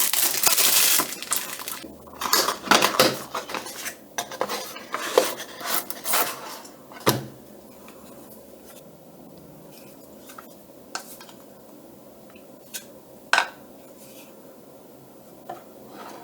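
Handling noise from unboxing a plastic surge protector power strip: dense clattering and rustling for the first several seconds, then a few separate clicks and knocks.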